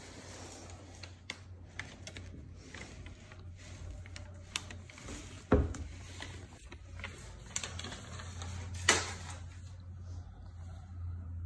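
Handling noise of painted lace and newspaper: rustling with scattered clicks and knocks, two louder knocks about five and a half and nine seconds in, over a steady low hum.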